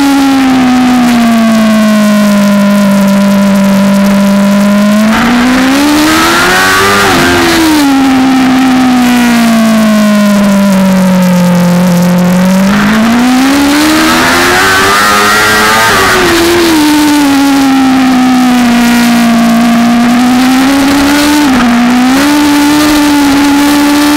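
BMW M1000RR superbike's inline-four engine at racing speed, heard from an onboard camera. The revs fall steadily for several seconds at a time as the bike slows for corners, then climb hard under acceleration, with brief sharp dips in pitch at upshifts, three in all.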